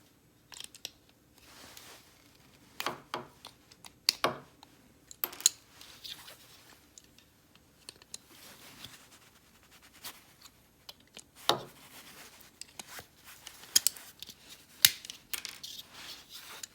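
Pliers gripping and snapping small tabs off a car speaker adapter: a string of sharp, separate clicks and snaps with quieter handling and rattling between them.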